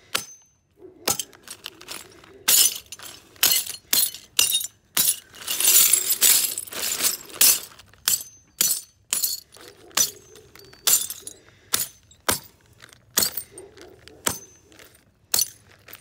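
A hammer striking pieces of a blue glass vase inside a plastic zip-top bag on a concrete paver, breaking them smaller: a string of sharp cracks and glass crunches, about two a second, with a longer crunching stretch around the middle.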